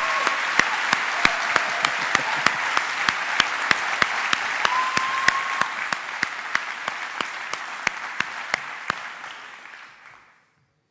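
Audience applause, with one pair of hands clapping close by, crisp and regular at about three claps a second. The applause dies away over the last few seconds.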